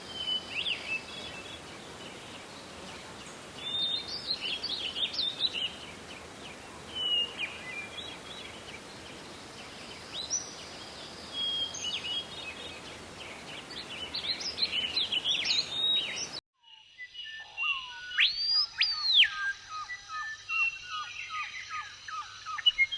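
Parrots chirping and calling in short squeaky bursts over a steady hiss. About 16 seconds in the recording cuts abruptly to a quieter one: a long whistle rising and falling once, then a rapid run of chirps.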